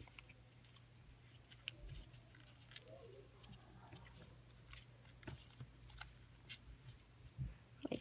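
Faint, irregular crackles and ticks of origami paper being folded and creased by hand, over a low steady hum.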